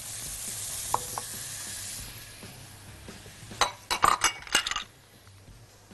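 Chopped onion and green pepper sizzling in ghee and oil in a pot while being stirred with a spatula; the sizzle fades after about two seconds. Near the end comes a quick run of clinks and knocks of the spatula against the pot.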